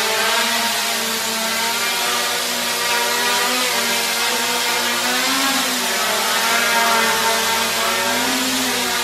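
MJX Bugs 3 quadcopter's four brushless motors and propellers whirring steadily in flight, a buzzing whine whose pitch rises briefly and falls back a few times.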